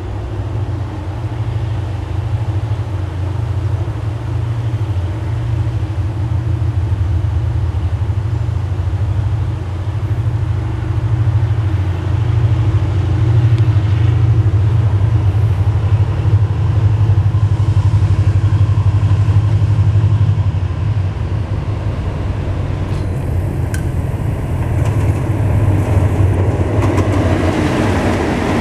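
Diesel locomotive engine running with a steady low drone that grows louder as the train approaches, then the rumble of the locomotive and its wheels on the rails building as it passes close near the end.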